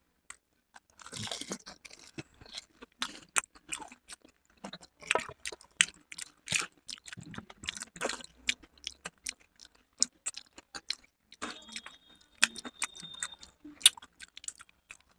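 Two people chewing mouthfuls of dahi golgappe, the crisp fried puri shells crackling and crunching in irregular bursts with wet chewing between them.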